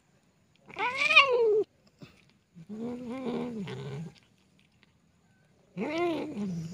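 Cat meowing three times while feeding on dry kibble. The first call, a rising-then-falling meow, is the loudest, the middle one is low and drawn out, and the last starts near the end.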